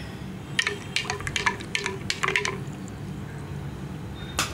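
Spoon stirring juice in a drinking glass, clinking against the glass about a dozen times in quick succession, then once more near the end.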